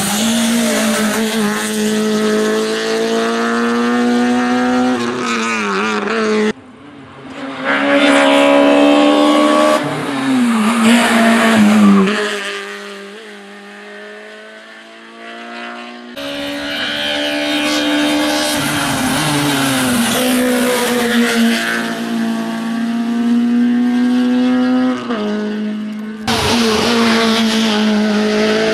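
Hillclimb race car's engine held at high revs as it climbs through bends, its note dipping and rising with lifts and gear changes. The sound cuts off abruptly a few times and fades away once, about twelve seconds in.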